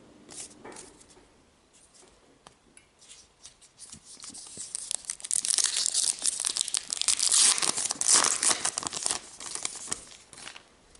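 Trading-card pack wrapper being torn open and crinkled. A crackly rustle builds about four seconds in and dies away near the end.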